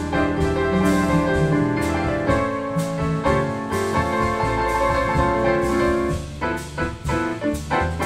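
Grand piano playing an instrumental passage of held chords and a melodic line. After about six seconds it turns to short, detached chords.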